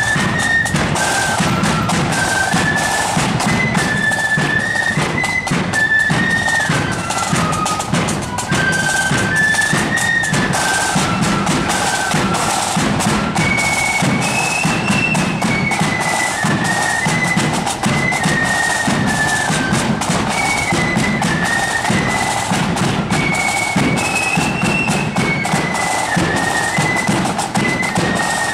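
Marching flute band playing a march: flutes carry a high stepping melody over a steady beat of snare and bass drums.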